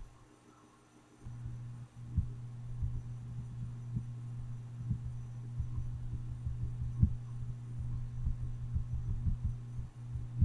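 A steady low hum with irregular soft low thumps through it.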